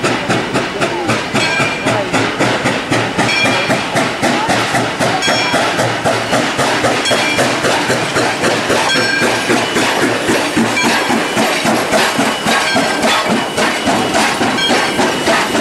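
Steam locomotive approaching and rolling slowly past at close range, with a fast, even beat running throughout. A short high tone recurs about every two seconds.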